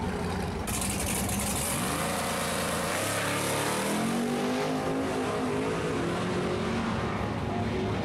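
Drag race car accelerating hard down the strip at full throttle. The loud engine sound starts abruptly less than a second in, and the engine note rises in pitch midway through.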